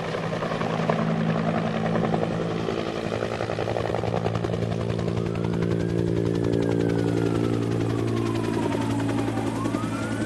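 Helicopter overhead: steady rotor chop and engine drone. From about halfway in, a siren wails, slowly falling in pitch and then rising again near the end.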